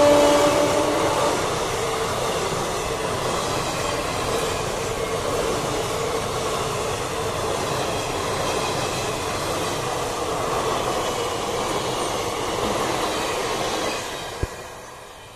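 Indian Railways passenger coaches running past at speed, a steady loud rush and rattle of wheels on the track. The electric locomotive's horn dies away about a second in, and the noise falls away near the end as the last coach passes.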